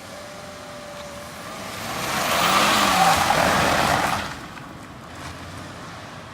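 A vehicle passing by: a rushing noise swells over about two seconds, holds briefly and fades away.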